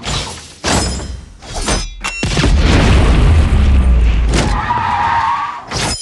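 Action-movie trailer sound effects over music. Several quick whooshes and impacts come in the first two seconds. After that a heavy low rumble takes over, with a brief high screech near the end.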